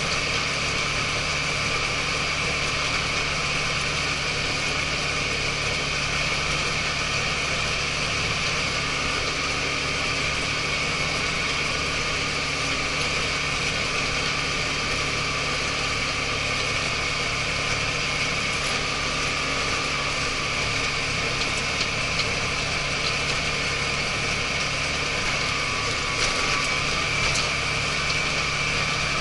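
ISEKI TJV semi-crawler tractor heard from inside its cab while it drives steadily along a paved road: the engine runs evenly with a steady high whine, mixed with the running noise of the crawler tracks, which the driver finds a little worrying.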